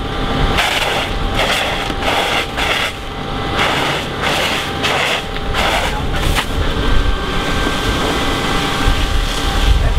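Fire hose nozzle spraying onto a burning car, hissing in repeated short spurts about twice a second for the first six seconds, then more steadily, over a steady low rumble.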